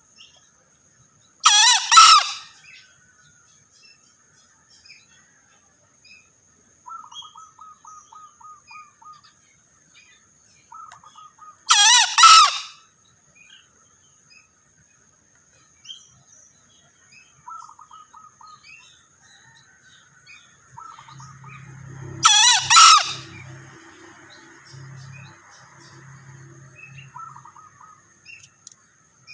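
Male green junglefowl crowing three times, about ten seconds apart: each crow is a shrill, two-part call lasting about a second. Between the crows there are short, faint rattling trills and a steady thin high-pitched tone.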